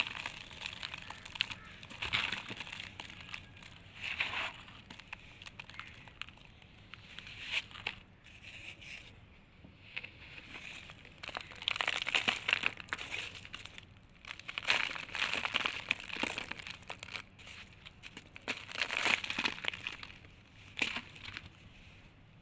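Hands crushing and crumbling molded blocks of dry red brick sand, a gritty crunching that comes in irregular bouts as the crumbs fall back onto the pile; the loudest bouts come a little past the middle.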